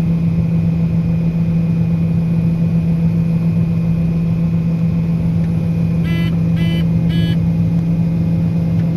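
Diesel engine of farm machinery running steadily with a constant hum. About six seconds in come three short electronic beeps, evenly spaced about half a second apart.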